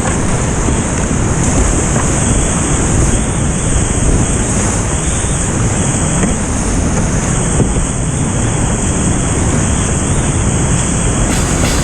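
Rushing whitewater of a mountain river: a steady, loud roar of water with no break.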